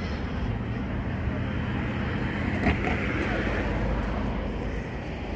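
Steady road traffic noise from cars driving across the bridge, with a short click about two and a half seconds in.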